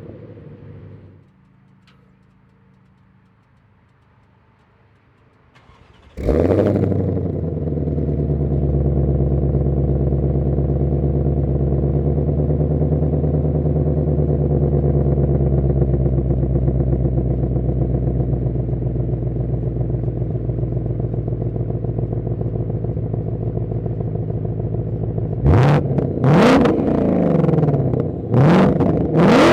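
2021 Ford Mustang Shelby GT500's supercharged 5.2-litre V8 on its stock exhaust. The engine cuts off about a second in, then after a few quiet seconds it starts with a loud bark and settles into a steady idle. Near the end it is blipped in about four quick revs.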